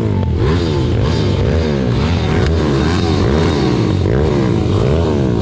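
Pit bike engine revving up and down over and over, about twice a second, while riding, with a rock music track laid over it.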